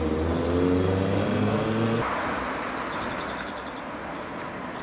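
Tram running: a steady motor hum for about two seconds, then a sudden change to an even rolling hiss with faint light ticking.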